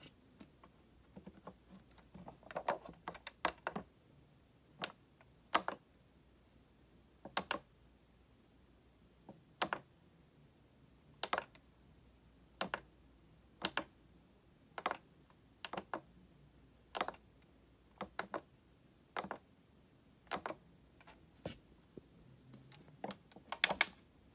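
Sharp little plastic clicks from a hand working the light switch on a 1/18 scale model Ford Explorer police SUV, cycling its lights. A quick cluster of clicks comes first, then single or double clicks about every second or so, and a fast run of clicks near the end.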